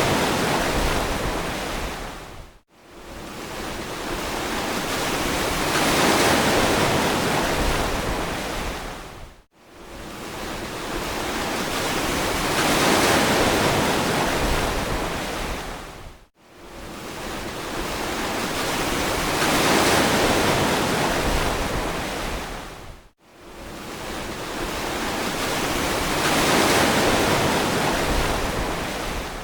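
Ocean waves washing onto a beach, each surge swelling and fading away about every seven seconds, with a brief drop almost to silence between waves.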